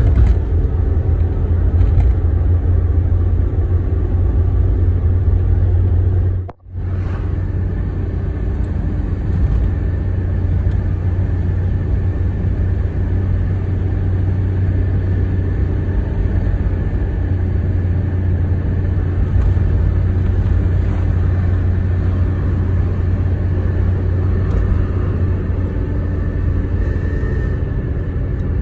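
Toyota Carina heard from inside the cabin while driving along: a steady low engine drone with road rumble. The sound drops out for an instant about six and a half seconds in.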